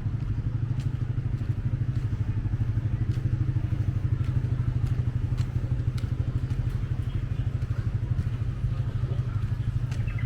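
Engine running steadily close by, a low pulsing hum that keeps an even pitch throughout, with a few faint clicks over it.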